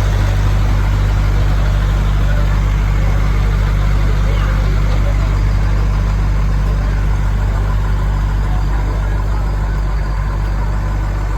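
Truck engine running with a steady low drone.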